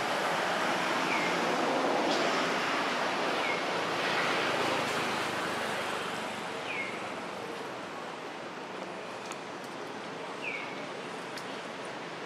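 Steady rushing noise of a nearby river, with four short, high chirps a few seconds apart, each falling in pitch.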